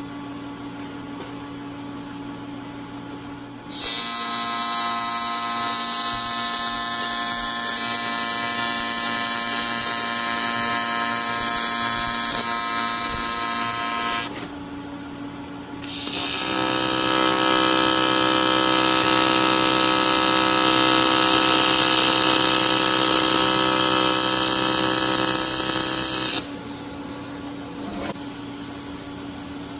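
AC TIG welding arc on aluminium buzzing steadily, struck twice for about ten seconds each with a short break between. A quieter steady hum from the welding machine runs between the two welds.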